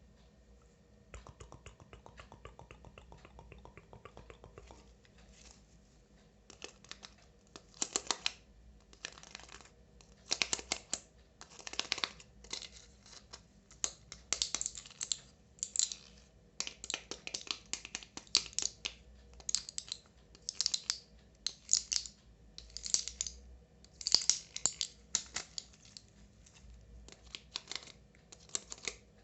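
Long nails tapping and scratching on a squishy anti-stress toy. A quick run of light, even taps opens it, then come irregular clusters of short, crisp scratching strokes.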